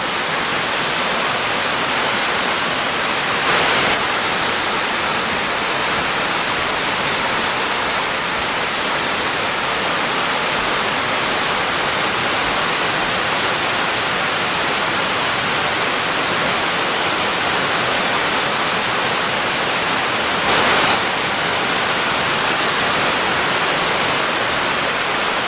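Waterfall: a steady rush of water pouring down a tiered rock fall. The rush swells briefly louder twice, once about three and a half seconds in and again about twenty seconds in.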